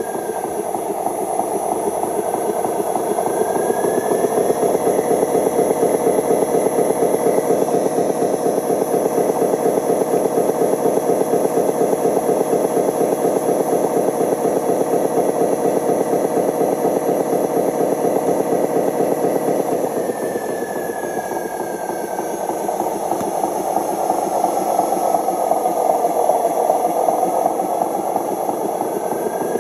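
Radio-controlled model truck running with a steady, rattling engine-like rumble. A thinner motor whine glides up in pitch a few seconds in, falls about two-thirds of the way through, and rises again near the end as the truck speeds up and slows.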